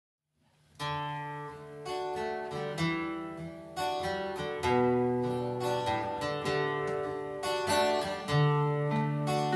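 Two acoustic guitars, a Gibson SJ-200 and a Martin OM, played through amplifiers with an electric bass underneath, strumming and picking a blues intro. The music starts about a second in.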